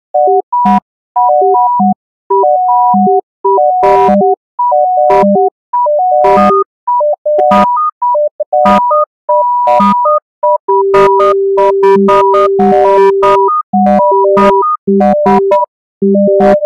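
Electronic step-sequencer music synthesized in Pure Data: short, clean beep-like tones at a handful of fixed pitches, switching in quick patterns, with a few short noisy percussive hits. In the middle, a low tone is held for about three seconds while beeps and hits carry on above it.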